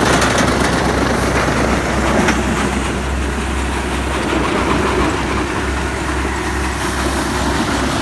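Tractor-driven wheat thresher running steadily, a constant low engine drone under the even rush of the machine as wheat bundles are fed into it.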